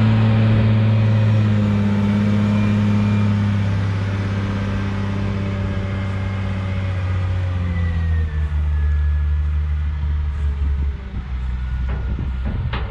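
Tractor engine running, its pitch slowly and steadily dropping as the engine winds down.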